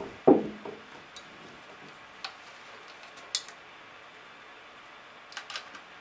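Handling sounds of a paintball compressed-air tank and remote line: one hollow knock with a short ring as the tank is set down on the table, then a few faint, scattered clicks as the fittings and marker are handled.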